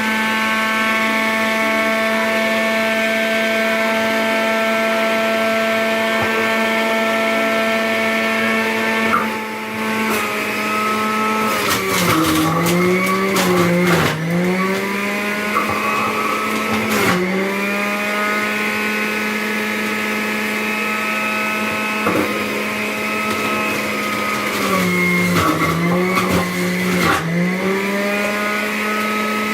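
Black & Decker electric juicer's motor running with a steady whine; several times, about twelve seconds in, around seventeen seconds and again near the end, its pitch sags under load with crunching as produce is pushed down the chute and shredded, then climbs back.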